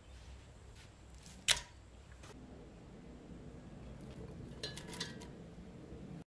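A single sharp tap about a second and a half in, then a short run of light clicks and clinks near the end as sliced onion drops into a steel pressure cooker onto raw beef. Under these sits a low steady hum.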